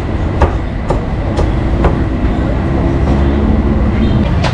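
Cleaver chopping roast duck on a thick round wooden chopping block: four sharp strikes about half a second apart, then a pause and one louder strike near the end, over a steady low rumble of background noise.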